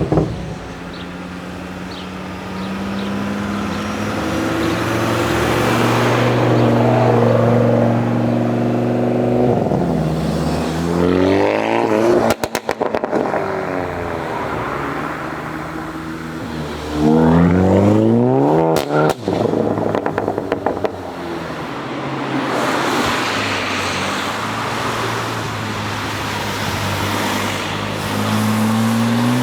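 High-performance car engine revving and accelerating hard, its pitch climbing steeply three times. Between the pulls come two short bursts of rapid exhaust pops.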